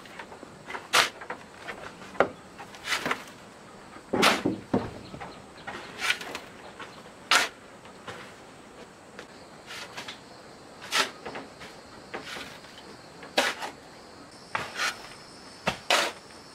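Hand tools at building work: a run of short knocks and scrapes, irregular, roughly one every second.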